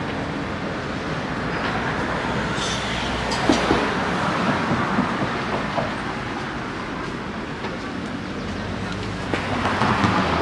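City street traffic noise: a vehicle rumbling past, with a few sharp clicks and knocks a few seconds in.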